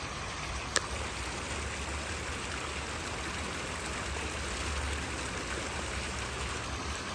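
Small pond fountain jets splashing steadily into the water, a continuous even hiss, with one short click under a second in.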